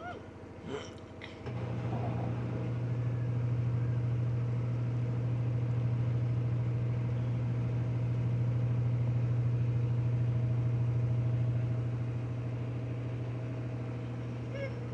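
Washing machine spinning to drive water out of the load: a steady low hum comes in sharply about a second and a half in and holds. A cat meows briefly at the start and again near the end.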